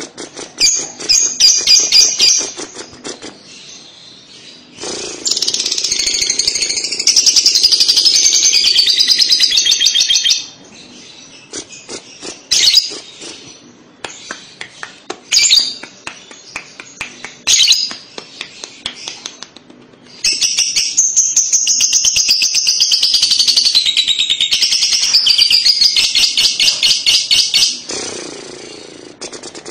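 Lovebird singing its ngekek: long runs of rapid, high chattering notes. There are two long runs of about five and eight seconds, with a few short chirping bursts before and between them.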